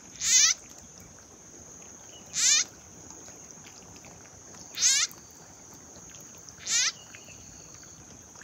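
Kodok bancet (puddle frog) giving short distress cries while a snake swallows it: four cries about two seconds apart, each falling in pitch. A steady high whine of insects runs underneath.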